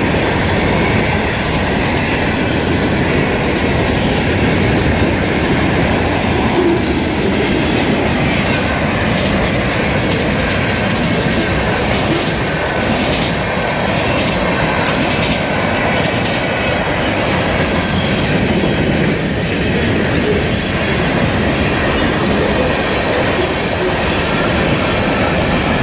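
A long freight train of mixed cars rolling past: a steady, loud rumble of wheels on rail with clicking from the wheels over the track.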